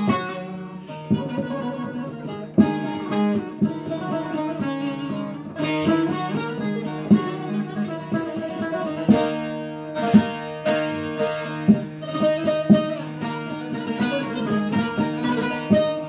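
Two bağlamas (long-necked Turkish saz lutes) playing an instrumental Turkish folk-song passage together, plucked briskly with frequent sharp strokes over a steady low drone note.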